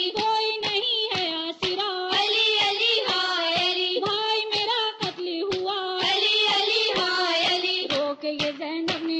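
A woman's voice chanting an Urdu noha (Shia lament), with a steady beat about twice a second.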